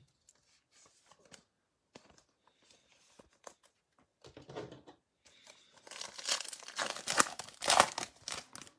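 Trading card pack wrapper being crinkled and torn open. Light handling ticks come first, then a short rustle about halfway, then a longer stretch of crackling near the end, the loudest part.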